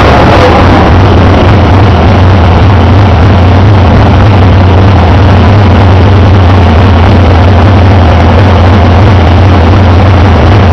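Sprint car's V8 engine running steadily at low revs, loud from an onboard camera in the cockpit.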